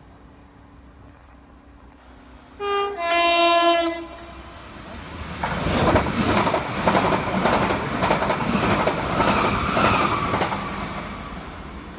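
A train sounds a two-note horn, a short higher note then a longer lower one, and then passes with a loud rhythmic clatter of wheels over the rail joints. The clatter fades away near the end.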